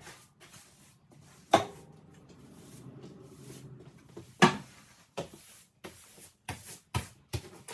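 Broom sweeping a floor: short brushing strokes, with two sharp knocks, one about a second and a half in and another about three seconds later.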